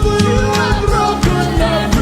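Live gospel praise band playing, with a steady drum beat and bass under a voice that holds and slides between notes.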